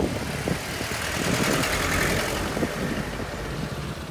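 Road traffic: a vehicle engine running with a steady low rumble, and a louder swell of noise around two seconds in.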